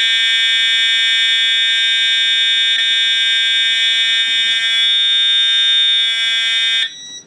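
Fire alarm system horns sounding a loud, steady, continuous alarm tone, then cutting off abruptly near the end.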